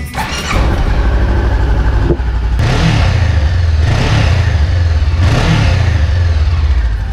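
Honda CB500X's parallel-twin engine, breathing through its stock OEM muffler, starting about half a second in and then revved up and back down several times over a steady idle.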